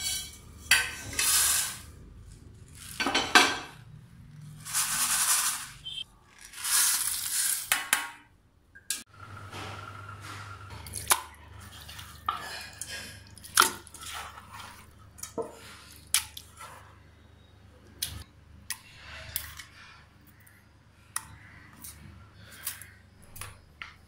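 Whole spices, fennel, black pepper and coriander seeds, rattling and sliding across a stainless steel frying pan as it is shaken during dry roasting, in about four long swishes. After about nine seconds, scattered sharp clinks and taps of utensils against a steel pot.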